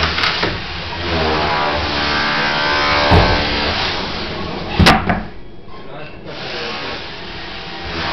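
Electric power tool buzzing as it cuts into layered flooring, with sharp knocks about three and five seconds in; the noise drops away briefly after the second knock, then picks up again.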